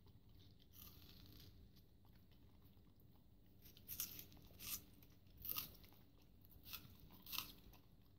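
Cavapoo dog biting and crunching a watermelon rind: about five crisp crunches starting about four seconds in.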